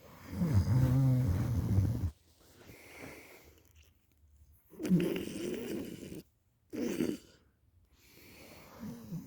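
A person snoring heavily in sleep, a series of rattly snores with quiet gaps between: a long loud one in the first two seconds, another about five seconds in, a short one around seven seconds, and softer ones near the end.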